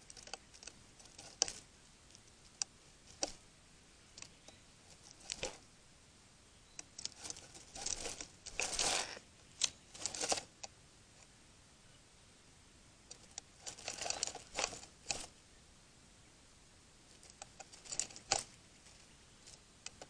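Irregular crackling and rustling of dry twigs and leaf litter: scattered single clicks at first, then denser bursts of rustling a third of the way in, again past the middle, and once more near the end.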